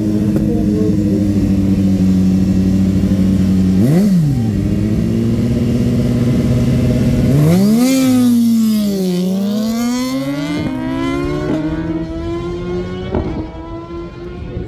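Drag-racing motorcycles holding steady revs at the start line, with one quick rev blip about four seconds in. A little after seven seconds they launch: engine pitch shoots up, dips and rises again at a gear change, then climbs steadily through the gears while the sound fades as the bikes pull away down the strip.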